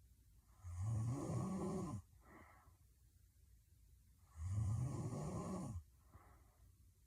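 A sleeping woman snoring heavily: two loud snores, each about a second and a half long, with fainter breaths between them.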